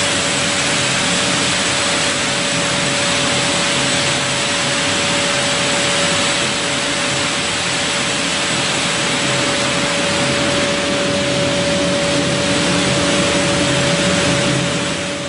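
Brush-sanding machine running steadily: a loud, even rushing noise with a constant whine, its motors and rotating abrasive brushes at work.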